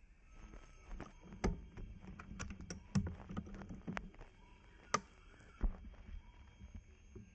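A run of irregular clicks and knocks, a dozen or more with a few louder ones, over a faint steady background.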